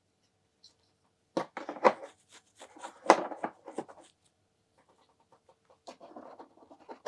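Small plastic miniatures and their packaging being handled: irregular clicks and knocks, then a run of quick small ticks and a light rustle near the end.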